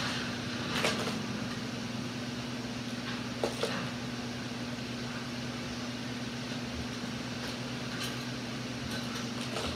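A steady low mechanical hum with a few brief soft taps, one about a second in and two close together a little after three seconds in.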